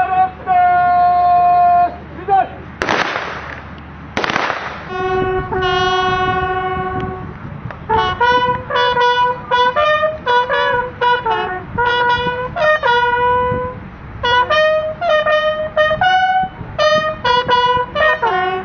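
A lone brass horn playing a ceremonial call at a military burial: a few long held notes, then quick runs of short notes. Two loud bursts of noise break in early on.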